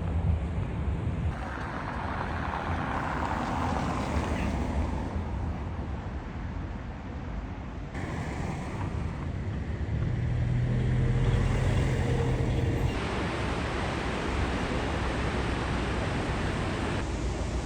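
City street ambience: the rumble of traffic with wind on the microphone, changing abruptly several times. A vehicle engine hums steadily for a few seconds past the middle.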